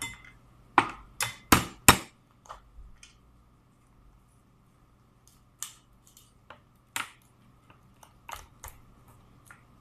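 Blue crab legs being snapped off and the shell cracking by hand: a run of sharp cracks, four loud ones close together in the first two seconds, then scattered fainter snaps.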